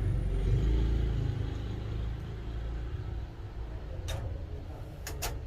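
A low rumble, loudest in the first second or so and then easing off, with a few light, sharp clicks near the end.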